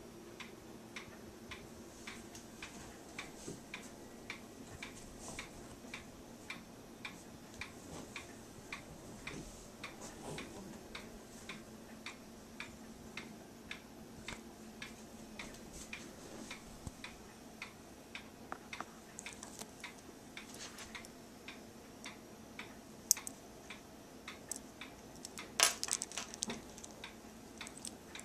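A clock ticking steadily, about two ticks a second. There is a sharp click about 23 seconds in and a short clatter around 26 seconds.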